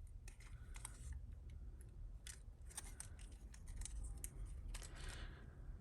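Faint, irregular small clicks and taps of costume jewellery being turned over and handled, metal pieces knocking lightly against each other.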